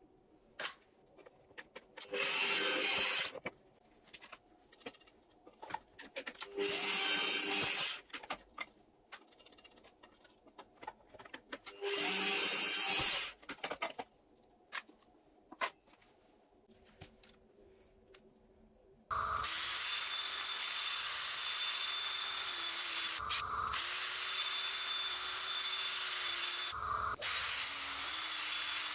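Bosch bench drill press drilling wooden bead blanks in three short bursts of about a second each, with light clicks and knocks of the beads being handled between them. About two-thirds of the way through, a power tool starts and runs steadily with a high whine, cutting out briefly twice.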